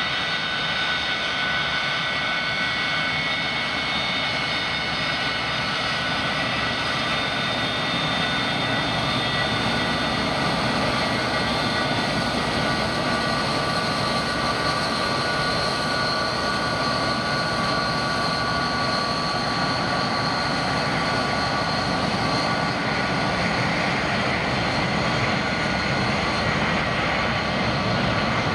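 Jet airliner engines running: a steady rush of noise with several high whining tones that drift slightly in pitch.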